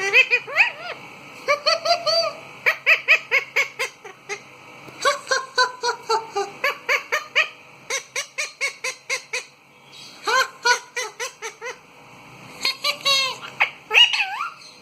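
Pet parrot calling in quick runs of short pitched notes, about seven runs with brief pauses between them.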